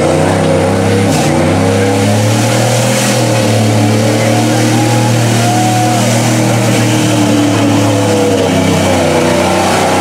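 Lifted mud truck's engine held at high revs, a steady deep drone that wavers only slightly, while its big tires churn through deep mud and water.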